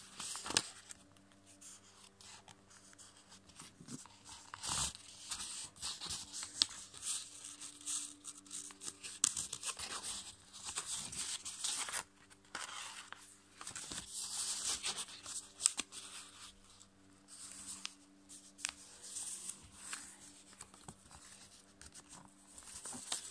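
A sheet of copy paper being folded and creased by hand on a tabletop: on-and-off rustling and crinkling, with scattered sharp ticks as the folds are pressed down. A faint steady hum runs underneath.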